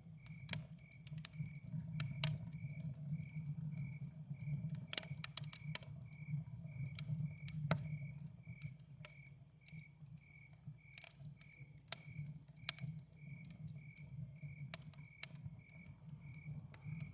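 Campfire crackling, with irregular sharp pops and snaps, while a cricket chirps steadily about twice a second over a low, steady rumble.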